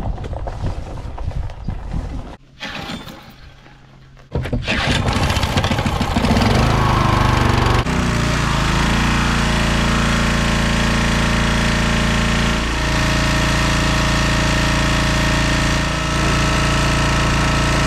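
Small gas engine of a pressure washer starting up about four seconds in, after some quieter clatter, then running steadily at a constant pitch as the wand sprays water with a hiss.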